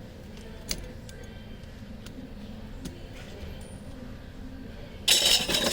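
A few faint clicks of tools and small plastic parts. Near the end comes a loud, half-second scraping crackle as the phone's plastic housing is pried apart.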